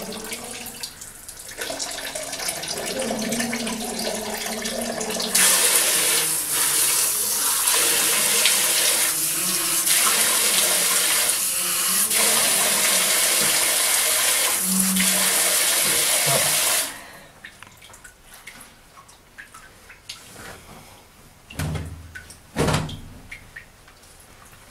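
Water running from a bathroom wall tap, with splashing as a person washes his face. It gets much louder about five seconds in and is shut off abruptly about seventeen seconds in. Two dull thumps follow near the end.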